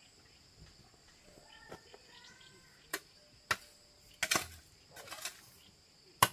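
Sharp chopping strikes, about five of them at uneven intervals in the second half, the last the loudest, over a steady high drone of crickets or other insects.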